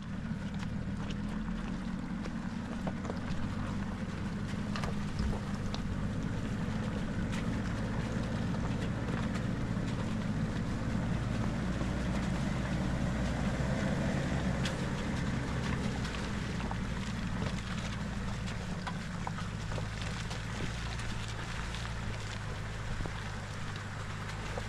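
BMW M51 2.5-litre straight-six turbodiesel of a P38 Range Rover running steadily at low speed, with scattered clicks of stones crunching under the tyres.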